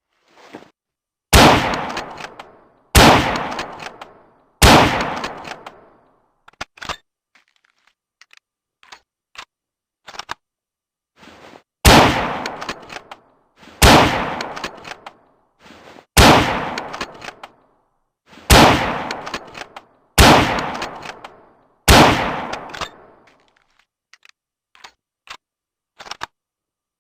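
Carcano M91 bolt-action rifle (6.5×52mm) firing: three shots about a second and a half apart, a stretch of small metallic clicks, then six more shots about two seconds apart, each shot trailing off in a ringing echo. A few more light clicks follow near the end.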